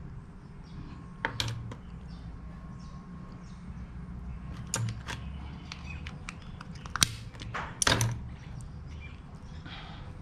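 Mud crab claw shell being cracked and broken apart to get at the meat: a series of sharp cracks and clicks, the loudest about seven and eight seconds in.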